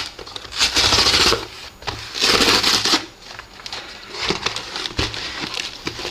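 A box and its packaging being opened by hand: two bursts of rustling and scraping, about a second in and again after two seconds, with quieter rustles and a few small knocks in between.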